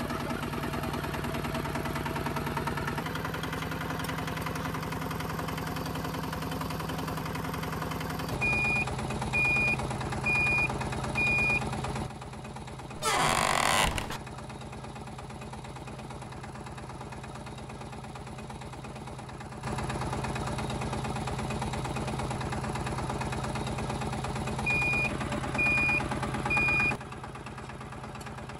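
Small motor of a DIY mini tractor running steadily with a low hum, its tone jumping at several abrupt cuts. Two runs of short high beeps, four and then three, and a loud one-second whoosh about halfway through.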